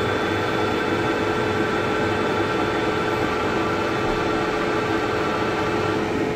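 Vanguard CW61 40-by-80-inch lathe running on low speed: a steady machine hum with a constant whine, unchanging in level.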